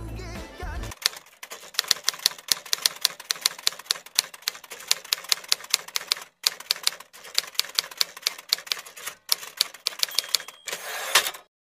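Typewriter sound effect: rapid, irregular keystroke clacks in quick runs with short pauses. Near the end comes a brief ringing tone and a short rushing sweep, like a carriage return.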